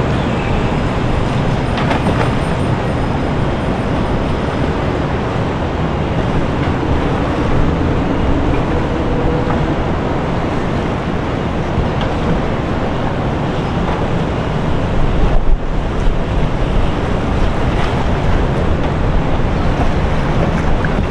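Motorboat under way: a steady, loud rumbling rush of engine and water, with wind buffeting the microphone.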